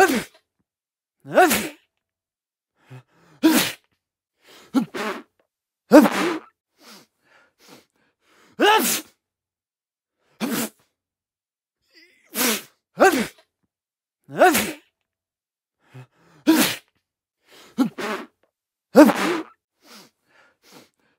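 A man sneezing over and over: about a dozen separate sneezes, one every second or two with silence between, a few coming in quick pairs.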